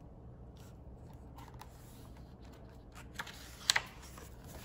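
Paper handling of a picture book as a fold-out page is lifted and opened: quiet rustles and soft ticks, with a couple of sharper paper snaps about three and a half seconds in.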